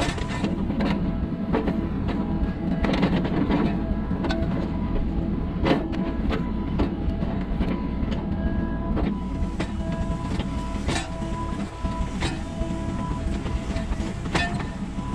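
SANY SY35U mini excavator's diesel engine and hydraulics running steadily under load while the bucket digs soil, with repeated clanks and knocks from the bucket and boom.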